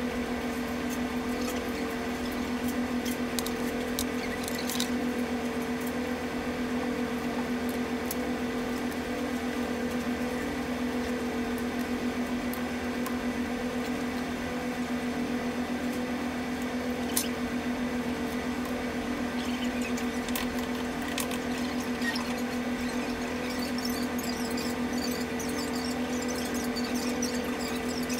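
Steady drone of a ferry's engines and machinery heard inside the ship, carrying two steady low tones. Occasional small clicks of tableware and cutlery, the sharpest about two-thirds of the way through.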